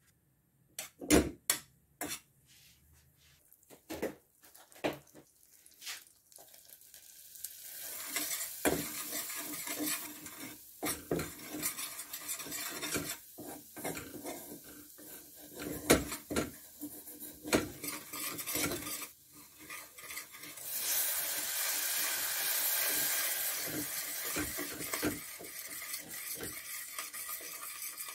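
A metal spoon clinks and scrapes against a stainless steel pot, with a few sharp knocks at first. Then butter and flour sizzle in the hot pan as they are stirred. About twenty seconds in, a louder hiss starts as milk hits the hot roux, and it eases as the stirring goes on.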